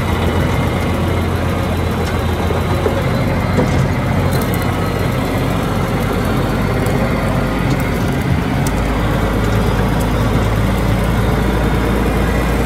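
John Deere farm tractor's engine running steadily, heard close up from on the tractor as it drives down a rough dirt trail. The engine note shifts about two-thirds of the way through.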